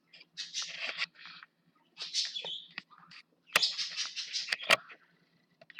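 Small bird chirping in repeated short bursts over a faint steady hum, with a couple of sharp clicks about halfway through.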